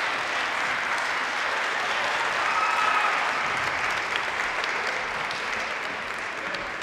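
Arena audience applauding steadily, the clapping slowly dying away near the end.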